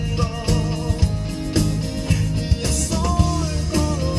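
Music: a song with guitar, bass and drums under a gliding melody line.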